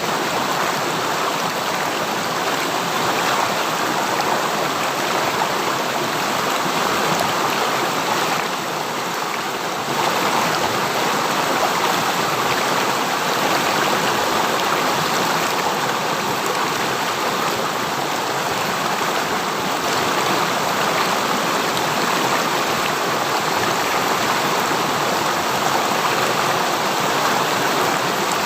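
River stream running: a steady rush of flowing water, dipping a little in level for a moment about nine seconds in.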